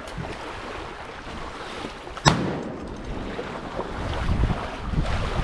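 A single shotgun shot about two seconds in: a follow-up shot at a crippled duck on the water. Steady wind and water noise runs underneath.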